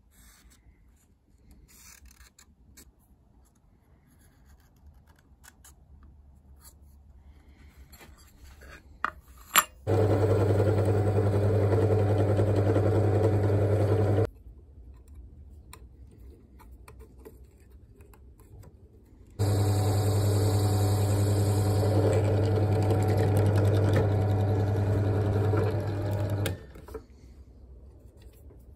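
Bench drill press motor running steadily twice, about four seconds and then about seven seconds with a pause between, as holes are drilled through layered paper micarta handle slabs. Faint handling sounds and a couple of clicks come before the first run.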